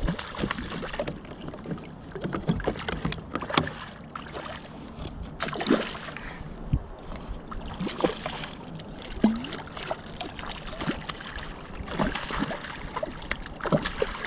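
Water lapping and slapping against a kayak hull, with scattered short knocks and clicks at irregular spacing.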